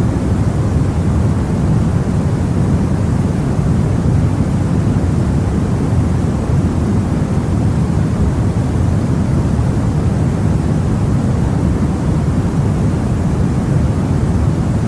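Steady generated noise for sleep, an even rushing hiss with no change at all, heaviest in the low end so it sounds deep rather than bright.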